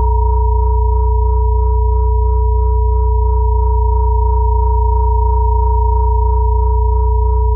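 Steady electronic sine tones held without change: a high tone near 963 Hz, a middle tone near 432 Hz and a strong low hum near 60 Hz, layered as a solfeggio and binaural-beat meditation drone.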